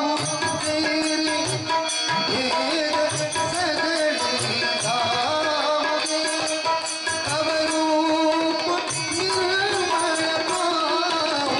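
Marathi devotional bhajan: a male voice singing a gliding melody, accompanied by a harmonium's sustained reed tones and a steadily played tabla rhythm.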